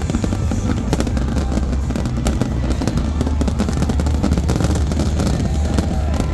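Fireworks going off in rapid succession: a dense run of sharp bangs and crackles over a steady low rumble.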